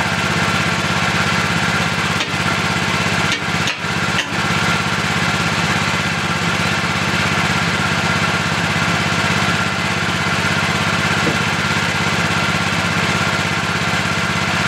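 Small engine of a compact mini loader idling steadily.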